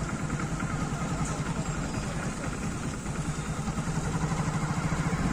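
Hero Splendor motorcycle's single-cylinder four-stroke engine running at a steady low speed with an even, rapid putt-putt exhaust beat, growing a little louder in the second half.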